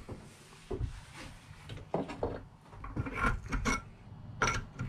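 Tools being handled and set down on a work surface: scattered light knocks with some rubbing and scraping.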